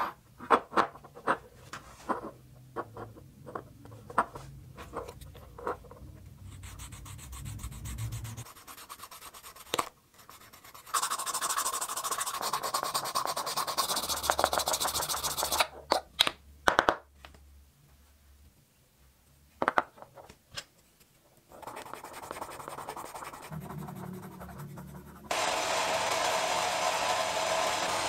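Small steel revolver parts click as they are set down and handled on a table. Then an abrasive block is rubbed back and forth over the revolver cylinder, a scraping for a few seconds, followed by a few more clicks. Near the end a belt-driven buffing wheel starts up and runs steadily while a metal part is polished against it.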